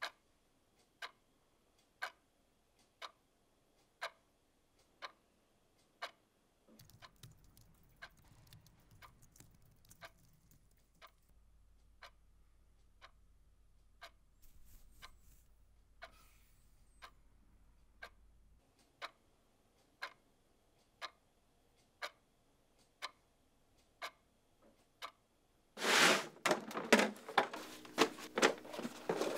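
A clock ticking steadily, one tick a second, with a faint low hum underneath for a stretch in the middle. Near the end a much louder clatter with some ringing tones cuts in suddenly.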